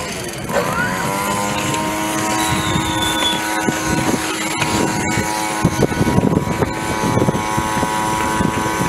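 Small two-stroke petrol blower revving up about half a second in, then running at a steady pitch. Some wind rumble on the microphone near the middle.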